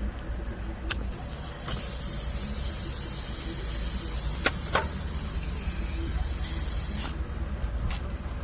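Soapy water sprayed from a sprayer in one steady hiss lasting about five seconds, starting and cutting off abruptly, with a few light clicks around it.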